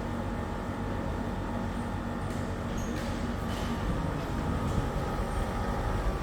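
Panasonic CU-PN9TKJ air conditioner outdoor unit running: a steady compressor hum with several steady tones under the rush of the condenser fan.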